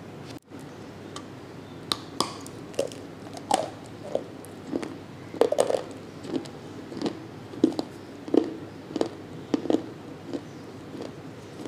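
Chewing and crunching a dry chunk of multani mitti (fuller's earth clay): short, sharp crunches about one to two a second, starting about two seconds in.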